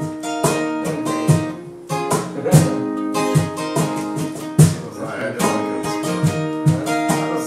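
Background music: an acoustic guitar playing plucked notes and strummed chords.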